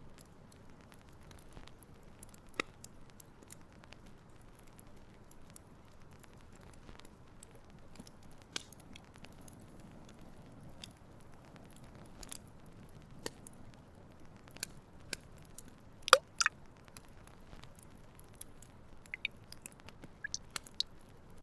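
Scattered light clicks and taps of small objects being handled, with a sharp tap a few seconds in and a louder double knock about two-thirds of the way through.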